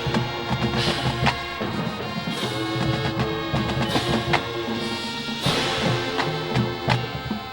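Marching band playing: sustained brass chords over drums, with cymbal crashes every second or two.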